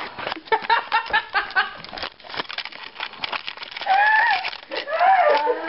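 Women laughing: a run of quick giggles in the first couple of seconds, then a few high vocal squeals that slide up and down near the end.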